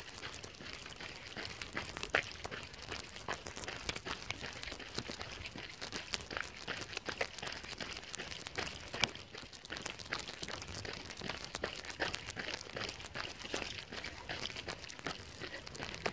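Plastic bag wrapped around the recording phone crinkling and rustling against its microphone as it jostles with the walker's movement: a dense, irregular run of crackles.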